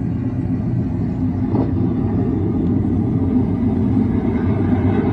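Steady rumble of military jet aircraft flying over, heard from a television's speakers. It starts suddenly as the clip begins playing.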